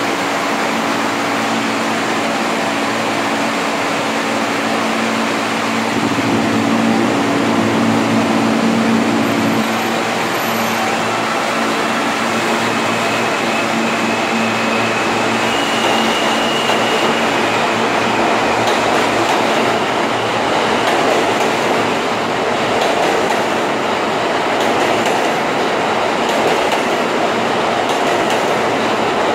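R160 subway train standing at the platform with a steady hum, then pulling out and accelerating past. Its motors give a brief whine that steps up in pitch, and the noise grows into a rushing clatter of wheels as the cars go by.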